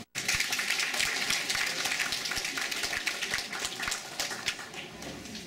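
Audience applauding: a dense spread of clapping that starts abruptly after a split-second gap and dies away about four and a half seconds in.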